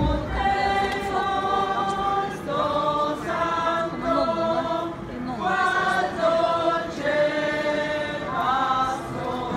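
A group of voices singing a slow hymn together, in phrases of long held notes that step up and down with short breaks between them.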